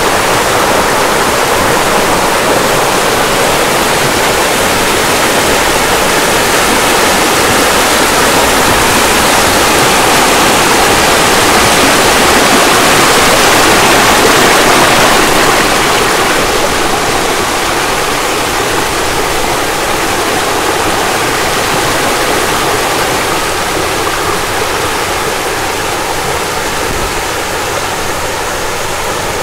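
Loud, steady rushing water, swelling to its loudest about halfway through and easing off after.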